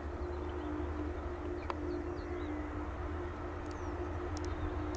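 Airbus A300-600ST Beluga's General Electric CF6-80C2 turbofan engines at taxi idle: a steady distant hum with two held tones over a low rumble. Birds chirp faintly over it a few times.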